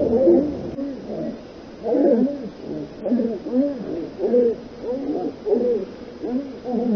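Hunting dogs barking, a steady run of short barks at about two a second.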